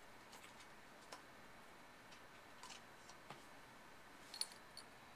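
Near silence: room tone with a few faint, light clicks, a small cluster of them about four and a half seconds in.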